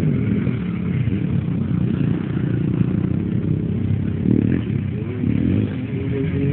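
Racing quad (ATV) engine revving up and down as it runs round a dirt track, its pitch rising and falling.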